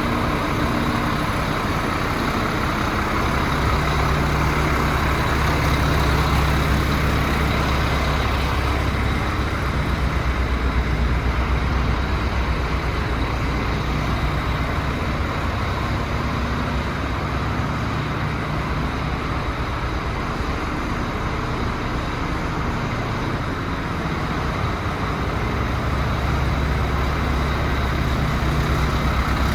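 DAF CF75's 310 bhp turbo diesel engine idling steadily, its low hum growing stronger and weaker a few times.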